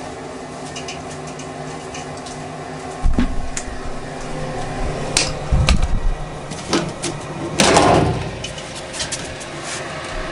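A steady low hum with irregular knocks, thumps and clicks over it, the loudest about three, five and a half, and eight seconds in.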